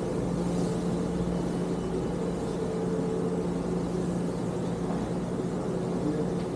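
A steady mechanical hum, with a low drone and a higher tone held level over a wash of noise.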